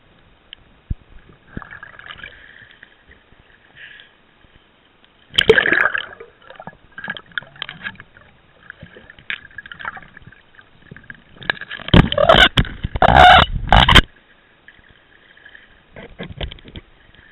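Water gurgling and sloshing around a camera held underwater and then at the surface, with a loud burst of churning, splashing water about five seconds in and a longer stretch of repeated splashes from about twelve to fourteen seconds.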